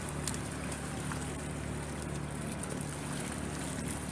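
A boat engine running steadily with a low drone, under a steady hiss, with a few faint clicks.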